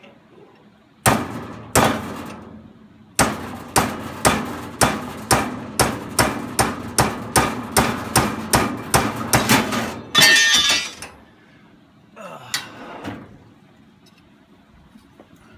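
Hammer blows on a metal antenna radial rod clamped in a bench vise, flattening its end: two blows, then a steady run of about twenty blows at roughly three a second. A short rattling clatter follows, then a softer knock.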